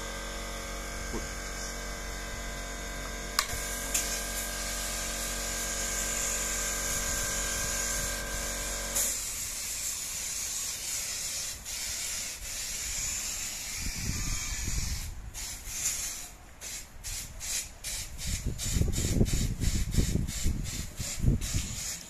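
Portable fire extinguishers discharging with a steady hiss. Under it, a steady electrical buzz cuts off suddenly about nine seconds in. The second half has irregular low bumps and clicks.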